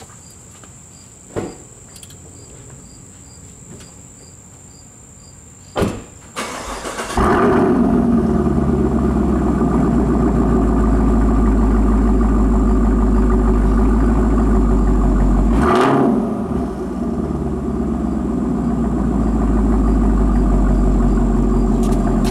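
A 2017 Camaro SS's 6.2-litre LT1 V8 with a Borla S-Type exhaust starts about seven seconds in and settles into a loud, steady idle through the exhaust, with a short dip in level about sixteen seconds in. Before it starts, faint insect chirping and a couple of sharp clicks.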